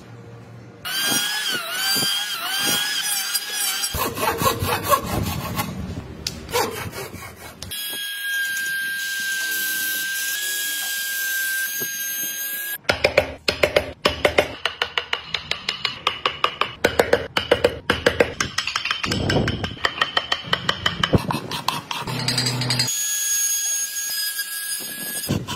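Woodworking tool sounds in edited sequence. A handheld trim router runs with a steady high-pitched whine, twice, the second time near the end. Between the two comes a long run of fast, repeated scraping strokes on wood.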